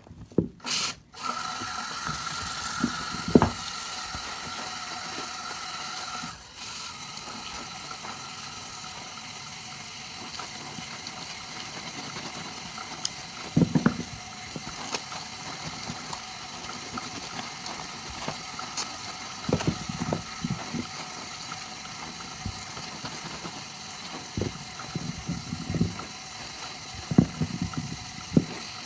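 Soap lather being worked by hand: a steady fine crackle of foam, with soft wet squelches now and then.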